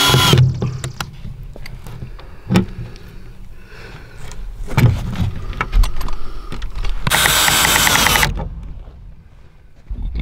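Cordless drill-driver driving screws through a hinge into wood. A whining run cuts off just after the start, then there are a few knocks of handling, then a second run of about a second comes about two-thirds of the way in.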